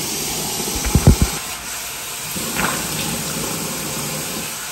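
Bathroom sink tap running steadily into the basin, with splashing as hands bring water to the face. A few loud low knocks about a second in.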